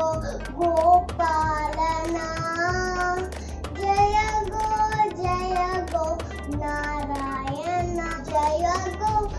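A young girl singing solo, holding notes and sliding between them in a steady melodic line.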